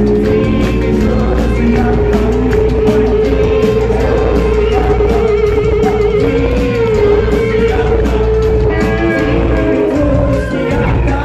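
Live rock band playing loud: electric guitars, bass and drums with a singer's voice, and a long held note through most of it.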